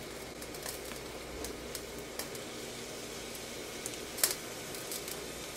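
Faint, steady sizzle of chicken pieces with onions and spices in oil in a pot on the stove, with scattered light clicks. A wooden spatula knocks once against the food or pot about four seconds in.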